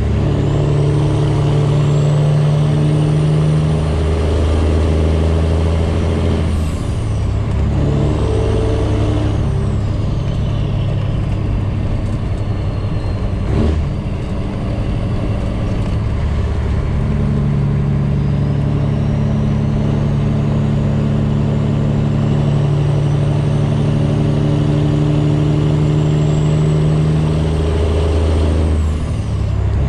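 Freightliner Classic XL semi truck's straight-piped diesel engine pulling down the road, its steady note stepping up and down in pitch several times. A single short knock comes about halfway through.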